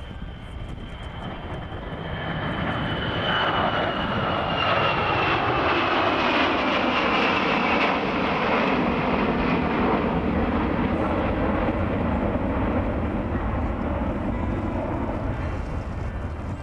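Aircraft engine noise as an aircraft flies past: the sound builds over the first few seconds and then stays loud, with a high whine that slowly falls in pitch.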